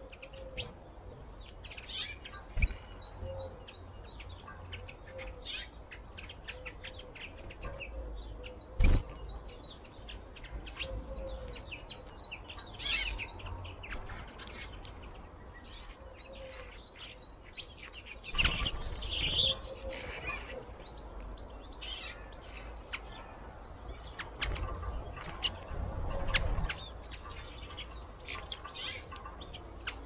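Small songbirds chirping and twittering in short high calls, with frequent short clicks and taps of birds pecking and landing on a wooden seed tray, and a sharp knock about nine seconds in.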